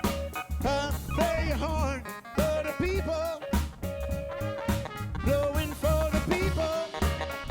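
A live jazz-soul band playing: a pulsing bass line and drum kit under a melodic lead line that slides up and down in pitch.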